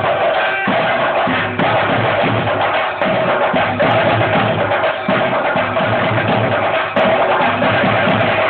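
Loud drum-led music with a steady held tone running beneath the drumming.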